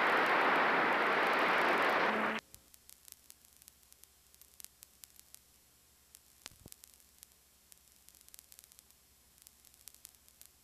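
A loud, steady rushing noise that cuts off suddenly about two and a half seconds in. It gives way to faint hiss and scattered crackling clicks from a blank videotape.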